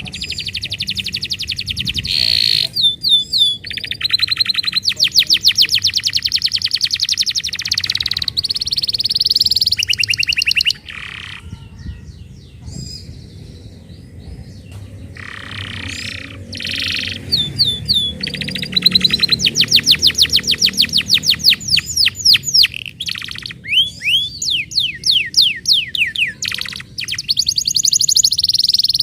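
Domestic canary singing: long, fast trills of rapidly repeated high notes, one tour after another. Partway through, the song drops to a quieter, sparser stretch of several seconds before the loud rapid trills resume.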